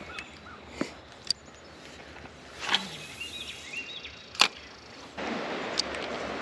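A spinning rod swishing through a cast, followed a moment later by a sharp click from the reel, with a few lighter clicks before. About five seconds in, a steady rushing noise starts suddenly and carries on.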